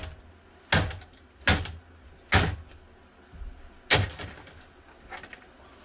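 Hard plastic parts of a broken box fan banging and clattering in a string of loud, sharp impacts, five in the first four seconds, then a fainter knock.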